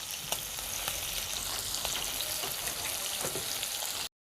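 Small chicken pieces sizzling steadily as they fry in hot oil on high flame, with a few light clicks and pops; the sound cuts off abruptly near the end.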